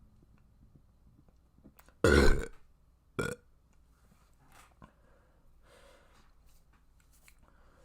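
A person burping: one long burp about two seconds in, then a shorter burp about a second later.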